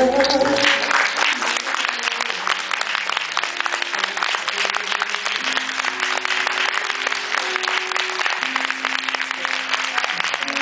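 Theatre audience applauding steadily as a song ends, over soft instrumental music with slow held notes; the song's deep bass stops about half a second in.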